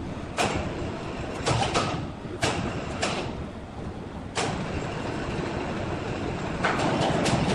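Large log band-saw mill running with a steady rumble, with sharp knocks at irregular intervals that come thicker near the end.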